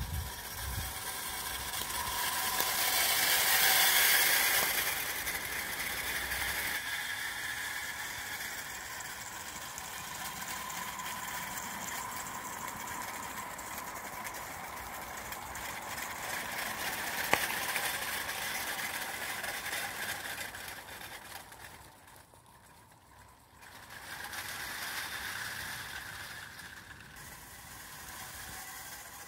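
Garden-railway locomotive Bagnall 'Brick' hauling a train of small metal tipper trucks: a steady rattle and clatter of wheels on the track. It is loudest as the train passes close about four seconds in, has one sharp click near the middle, and dies away briefly a little after twenty seconds before returning.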